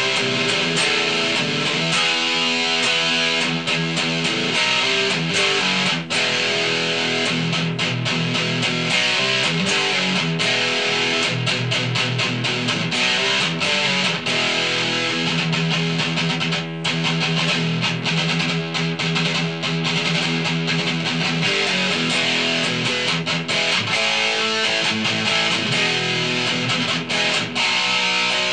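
Ibanez S470 electric guitar played through 80s-style distortion on its DiMarzio Gravity Storm bridge pickup: continuous riffs and chords with many quick note changes, recorded through a camera's built-in microphone.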